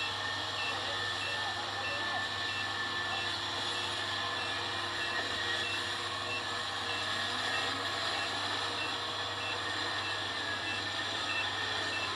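Kubota combine harvester running steadily while its reverse alarm beeps about twice a second, the sign that the machine is backing up.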